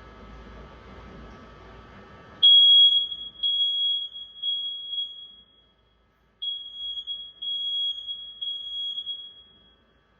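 Smoke detector set off with its test button, sounding a loud, high-pitched alarm tone about two and a half seconds in: three beeps, a pause of about a second, then three more. The alarm sounding shows the newly installed detector is working.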